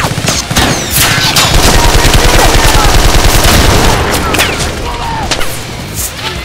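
Automatic rifle gunfire, with its longest burst a fast, even string of shots lasting about two seconds. Scattered single shots and short bursts come before and after it.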